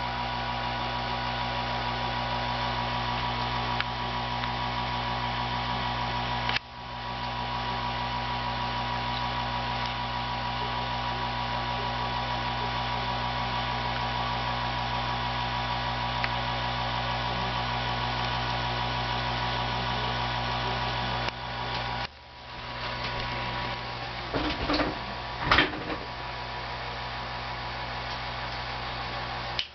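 A tube TV set running with 6JE6C horizontal output tubes, giving a steady electrical hum and buzz. The sound drops out briefly twice, and a few sharp ticks come near the end.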